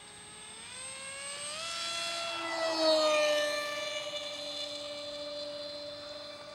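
Polaris radio-controlled model plane flying past, its motor and propeller whining. The whine rises in pitch as it speeds up and comes closer, is loudest about three seconds in, then drops in pitch and fades as it passes.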